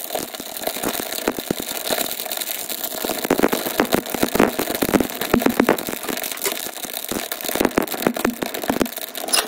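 Freshly lit kindling fire crackling and popping in the firebrick-lined firebox of a wood-burning cookstove, over a steady rushing noise. The pops come thickest in the middle stretch and again near the end.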